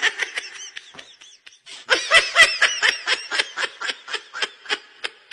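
Laughter: a long run of quick, high-pitched 'ha' pulses, starting about two seconds in and tapering off near the end.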